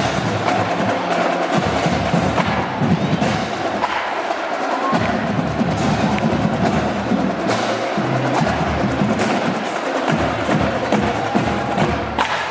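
Marching band percussion playing a steady drum cadence, with sharp clicking strokes over low drum beats.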